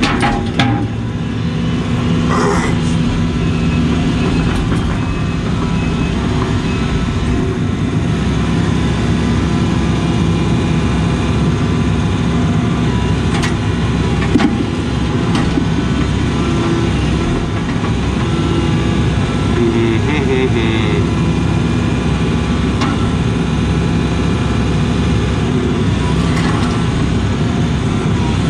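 Case CX80 excavator's diesel engine running steadily while the hydraulics work the boom and thumb, heard from inside the cab, with a couple of light knocks about halfway through.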